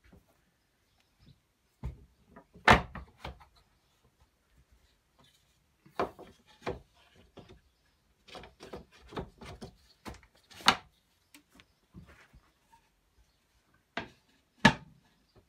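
Plywood soap slab mould being handled and fitted together: wooden knocks and clacks as the plastic liner is set in, a side panel is slid into its slots and the lid is laid on, with softer scraping between. The sharpest knocks come about three seconds in and near the end.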